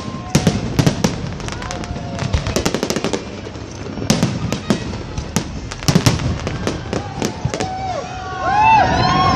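Aerial fireworks going off: sharp bangs and crackles in quick clusters of several at a time. Near the end a crowd of onlookers starts cheering and calling out, louder than the bangs.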